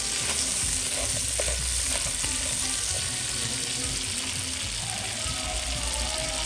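Whole crayfish frying in a hot wok, a steady sizzle, with a spatula stirring through them.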